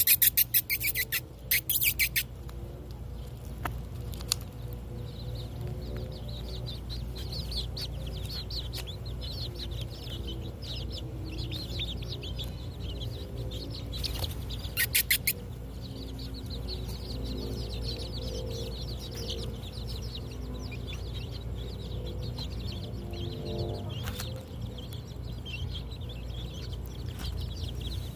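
A flock of mini chickens clucking softly and peeping busily while feeding. Two short bursts of loud rattling break in, one at the start and one about halfway.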